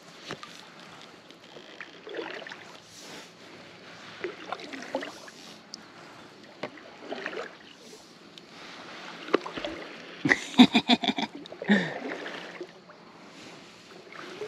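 Kayak paddle strokes, the blade dipping and swishing through calm water about every two to three seconds. A little past the middle comes a quick run of sharp knocks, the loudest sound heard.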